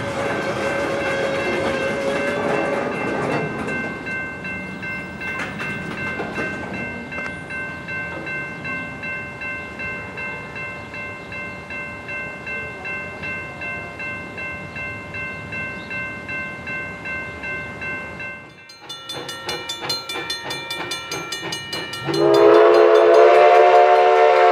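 A railroad crossing bell ringing steadily, about twice a second. Near the end a steam locomotive whistle blows a loud chord for a couple of seconds.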